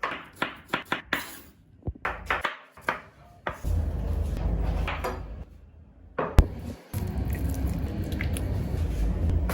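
Kitchen food-preparation sounds: a quick run of knocks and clatters of utensils or dishes, then a steady low rumbling noise broken by one sharp click.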